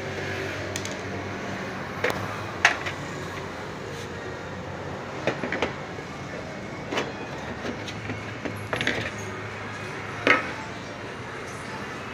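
Sheet-metal case of a CCTV DVR recorder being handled and its cover taken off: scattered sharp clicks and knocks of metal against metal and the tabletop, about seven in all, over a steady low hum.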